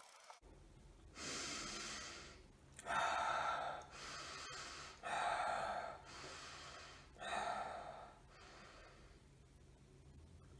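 A man breathing heavily, four long breaths about two seconds apart, the second and third the loudest, as he labours through ice-cold watermelon.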